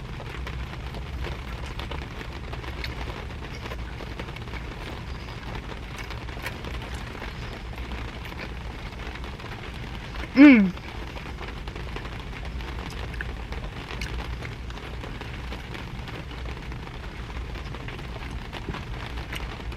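Steady rain falling on a parked car, heard from inside the cabin, with a short voice sound that falls in pitch about ten seconds in.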